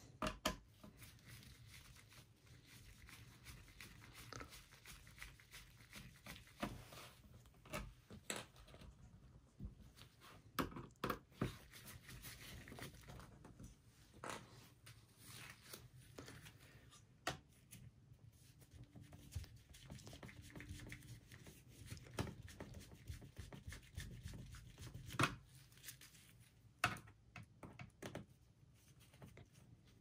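Phillips screwdriver backing out the bottom-cover screws of a Dell Latitude E6330 laptop, with hands handling the laptop: faint, irregular clicks and small knocks, a few sharper ones about half a second in and near the end.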